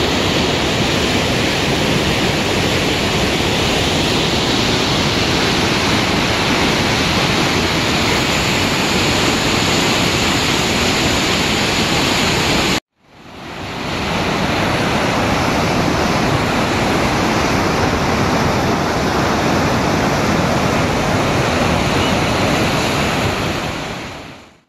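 Steady rushing roar of Niagara River rapids pouring over the brink of the Horseshoe Falls. It cuts off abruptly about halfway through, swells back up within a second or so, and fades out at the end.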